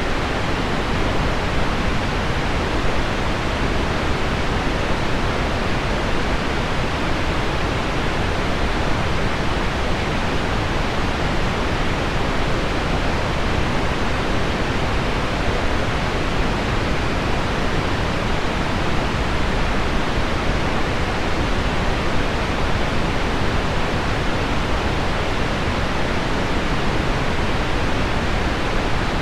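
Steady, even hiss of heavy rain on window glass mixed with deep pink noise, with no breaks or separate drops standing out.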